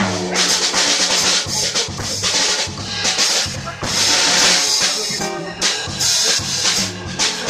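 Jazz organ trio of organ, archtop guitar and drum kit playing live, with the drums loudest: quick snare and cymbal hits over the organ and guitar.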